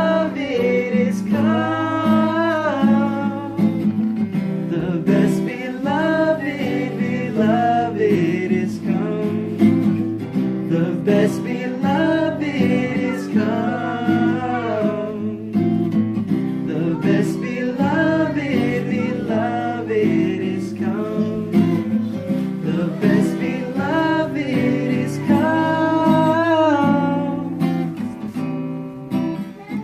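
Acoustic guitar strummed steadily with a voice singing a melody over it.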